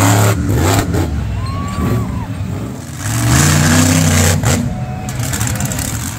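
Monster truck engines revving hard. The revs drop off, then climb again about three seconds in as a truck launches off a dirt jump.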